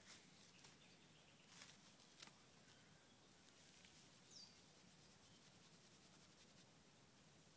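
Near silence. Faint crackles and scrapes of dry stringybark being rubbed and pulled apart by hand into tinder, with a cluster of small crackles about two seconds in and a run of fine rapid ticks near the end. A single short, high, falling chirp about four seconds in.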